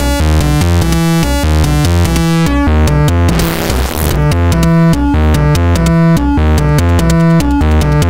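Eurorack modular synthesizer patch running through a Schlappi Engineering 100 Grit distortion module, playing a fast stepped sequence of pitched notes over a low bass line. About three seconds in, a gritty noise swells up over the notes for about a second.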